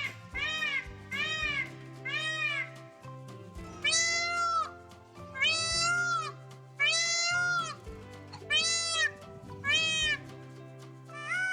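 Peacock giving repeated calls, each rising then falling in pitch: a quick run of short calls, then five longer calls about a second and a half apart. Background music underneath.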